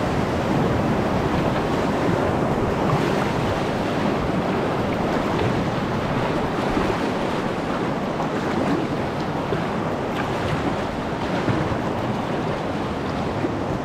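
Whitewater rushing steadily through a class 3 river rapid, an even, unbroken roar of moving water.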